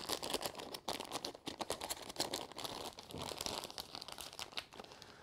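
Clear plastic parts bag crinkling and crackling in the hands as it is pulled open and handled, the crackles thinning out near the end.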